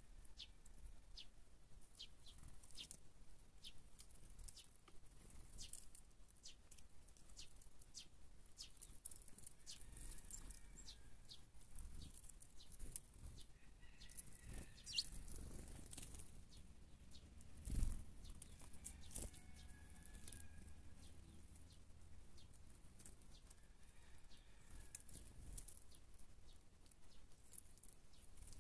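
Birds feeding on scattered corn kernels at a ground feeding spot: many small, sharp high ticks and faint chirps throughout, with one louder thump about two-thirds of the way through.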